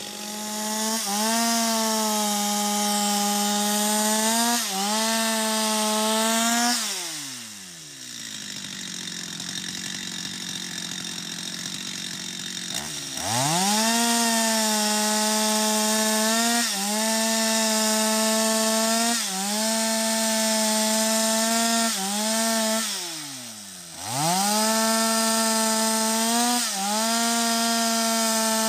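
Stihl MS 250 two-stroke chainsaw cutting into a sengon trunk at full throttle, its pitch dipping briefly every few seconds as the chain bites into the wood. It drops to idle twice, for several seconds about a quarter of the way in and briefly about three quarters in, then revs back up into the cut.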